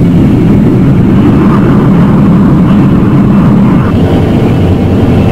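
Steady low engine drone of the Hydranger submarine cruising underwater, a film sound effect.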